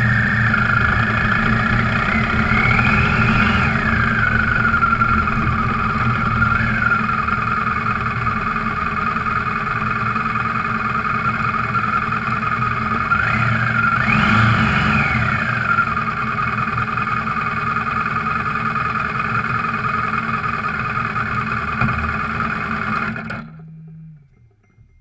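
Motorcycle engine running while riding, its pitch rising and falling as it revs twice, about 3 s and 14 s in, then cutting off abruptly about 23 s in.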